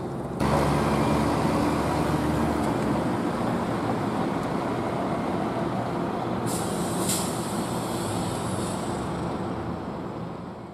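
Downtown street traffic with a heavy vehicle's engine running, and a sharp hiss of air brakes about six and a half seconds in that tapers off over a couple of seconds. The sound fades out at the end.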